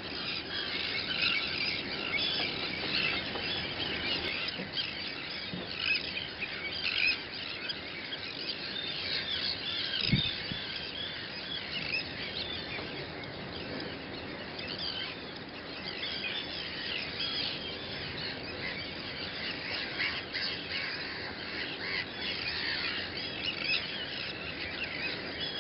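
Sandwich tern breeding colony: a dense, continuous chorus of harsh, grating calls from many birds at once. A single low thump about ten seconds in.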